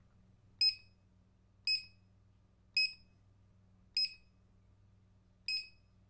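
Barcode scanner beeping five times, one short high-pitched beep every second or so. Each beep confirms a successful read of an item barcode.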